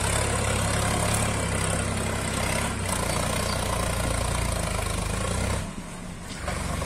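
Sonalika tractor's diesel engine running steadily as it hauls a loaded trolley up a rough slope. Near the end the sound drops away briefly, then returns.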